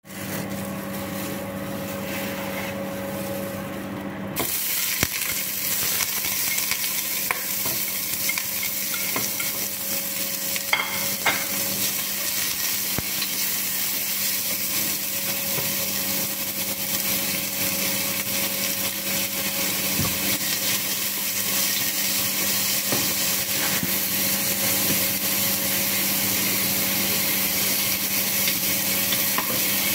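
Food sizzling as it fries in a pot, with the scrape of a wooden spoon stirring it and a steady hum underneath. The sizzle comes in abruptly about four seconds in and then holds steady.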